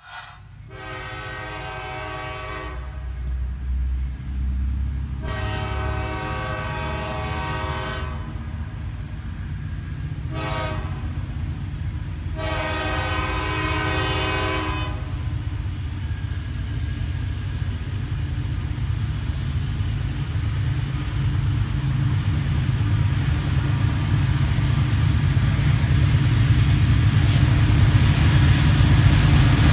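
Diesel freight locomotive's horn sounding two long blasts, one short and one long: the standard warning for a grade crossing ahead. Beneath and after it the locomotive's engine rumbles, growing steadily louder as the train approaches.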